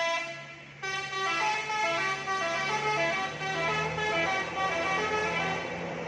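Telolet Basuri musical horn on a Hino RK260 tour bus playing a fast melody of short, stepping notes, with a brief gap near the start. The bus's diesel engine runs steadily underneath.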